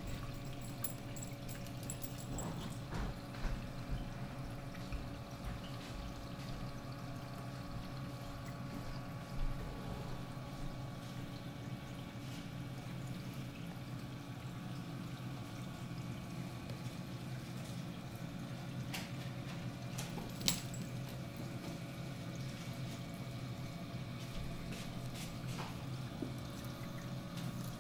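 Reef aquarium water circulation: water steadily pouring and trickling, over a low steady hum. There is one sharp click about two-thirds of the way through.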